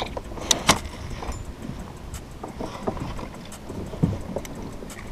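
Clicks and knocks of fishing gear being handled in a kayak: two sharp clicks about half a second in, a dull thump about four seconds in, and lighter knocks between.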